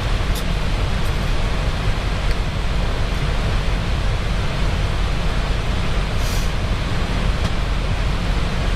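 Steady rush of airflow and engine noise on the flight deck of an Airbus A320 in flight, with a few faint ticks and a short hiss about six seconds in.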